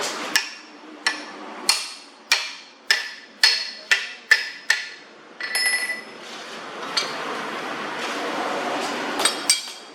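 Hammer blows on metal, about eight evenly spaced strikes, each with a short metallic ring. After them comes a few seconds of steady rasping noise, then a few more quick blows near the end.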